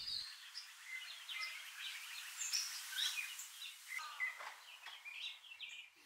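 Outdoor birdsong: many short, scattered chirps and calls from songbirds over a faint, even hiss.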